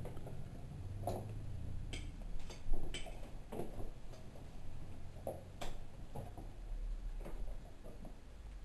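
Light plastic clicks and knocks from a toddler's plastic ride-on toy being handled and pushed on carpet, irregularly spaced, with one louder knock about two and a half seconds in.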